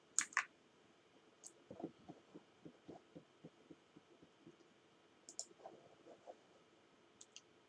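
Faint room hum with a few sharp clicks of a computer mouse, mostly in quick pairs, the loudest right at the start. Between them come soft low taps, about three a second, for a couple of seconds.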